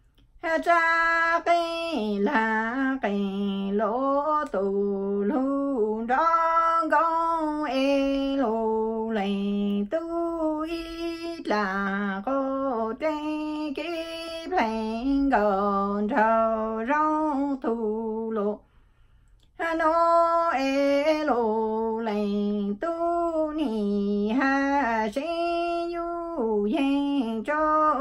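A woman singing Hmong lug txaj (traditional sung poetry) unaccompanied, in long held and wavering phrases, with one short pause about two-thirds of the way through.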